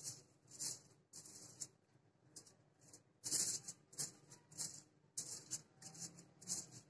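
Silicone pastry brush spreading ghee over crinkled aluminium foil: a series of faint, short, irregular swishing and crinkling strokes.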